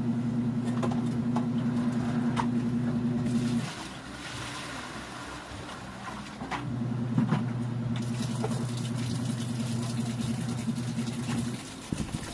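Electric washing machine's motor humming steadily as it runs its wash. It stops about three and a half seconds in, starts again about three seconds later, and cuts off near the end, with a few light knocks along the way.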